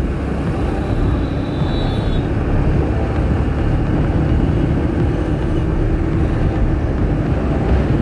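Bajaj Pulsar 180 motorcycle riding along a road: a steady rush of wind and road noise, with the engine running underneath.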